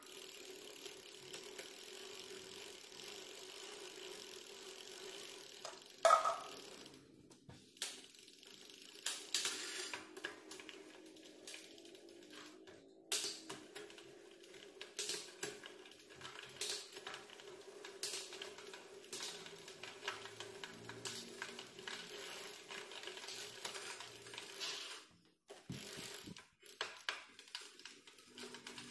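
Bicycle drivetrain turning with freshly oiled chain running over the Shimano screw-on freewheel sprockets and through the Tourney rear derailleur as the rear wheel is spun. It gives a steady whir for about the first six seconds, a sharp clack about six seconds in, then irregular ratchet-like clicking and ticking.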